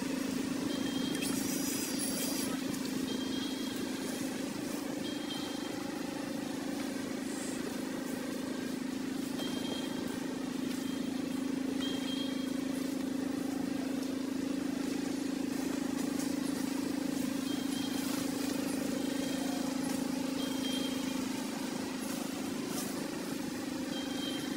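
Steady low hum with short, high chirps recurring every few seconds.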